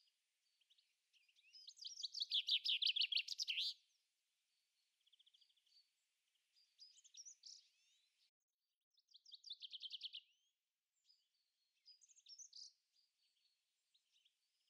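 Songbirds singing. The loudest is a rapid trilling phrase about two seconds long, near the start, and shorter chirps and trills follow several times later.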